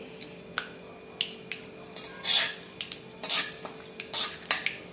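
A flat metal spatula scraping and clinking against a metal kadai while stirring whole spices in hot mustard oil. There are several irregular scrapes and knocks, with a light sizzle of the frying spices.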